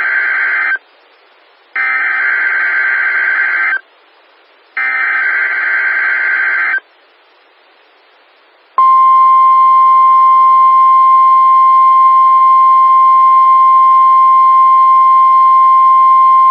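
NOAA Weather Radio weekly test: the end of one SAME digital header burst and then two more, each about two seconds of harsh, buzzy data tones with short silences between. Then, about nine seconds in, the steady 1050 Hz warning alarm tone begins and holds. These are the tone signals that switch on specially built weather-alert receivers.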